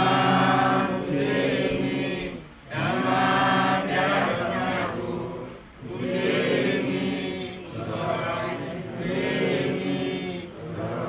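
Voices chanting or singing in long held phrases of about two to three seconds each, with short breaks between them.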